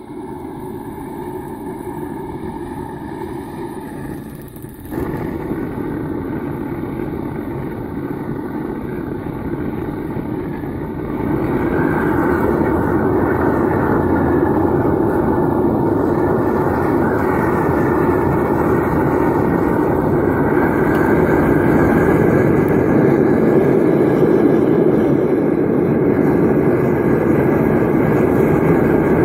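Small electric blower forcing air into a charcoal-fired melting furnace: a steady rushing hum that gets louder in two steps, about 5 and 11 seconds in.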